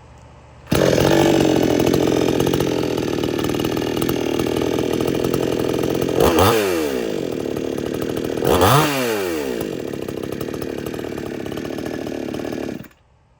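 Two-stroke gas chainsaw fires up abruptly and idles steadily. It is revved twice, briefly, about six and nine seconds in, each time falling back to idle, and then shuts off near the end. It runs smoothly, with no sign of trouble.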